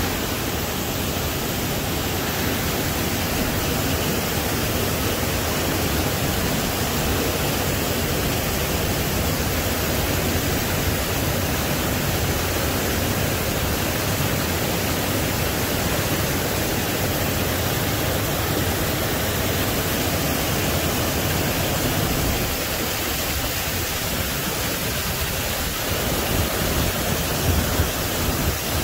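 Small waterfall cascading over rocks: a steady rushing of water, briefly louder and uneven near the end.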